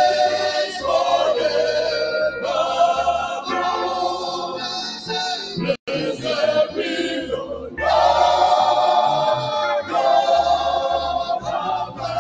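Live gospel praise singing: a male lead voice through a microphone with a choir, over electric bass and guitar. The sound cuts out for a split second about halfway through.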